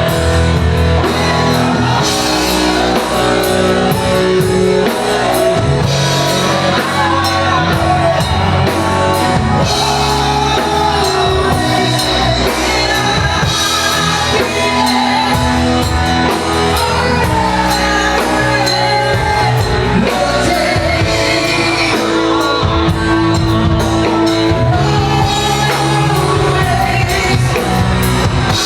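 A live band playing a rock song, with a lead singer's voice over the instruments, loud and steady throughout.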